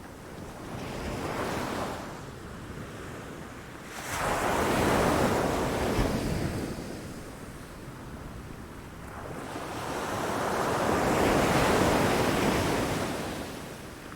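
Sea waves breaking against rocks: three surges of surf noise, a small one about a second in, then a loud one that breaks suddenly about four seconds in and a slower, loud swell near the end, each washing back down between them. A light wind rush on the microphone runs under the surf.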